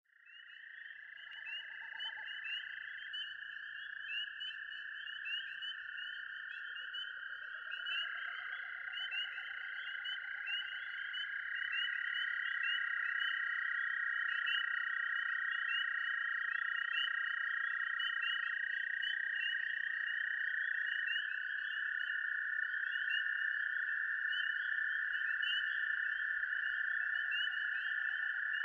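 A dense, steady chorus of calling animals: a continuous high trill with rapid repeated chirps over it, fading in at the start. A lower sweeping tone rises and falls a few times.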